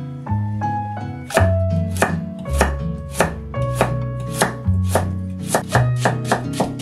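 Kitchen knife chopping on a cutting board: sharp strikes begin about a second in, roughly two a second, and come faster near the end, over background music.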